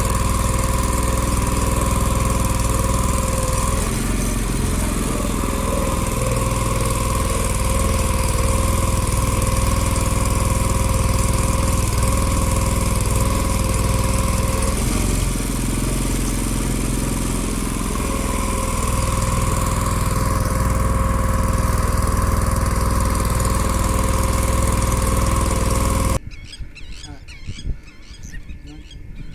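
A small engine running steadily with a constant whine over a low rumble, stopping abruptly near the end and giving way to much quieter sounds.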